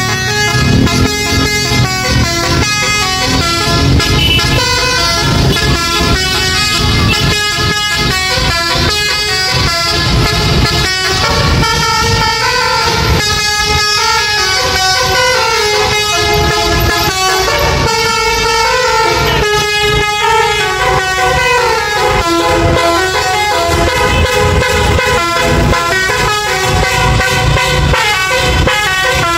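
Tour bus's basuri (telolet) melodic horn playing a tune, its notes stepping up and down one after another, over the low sound of engines and traffic.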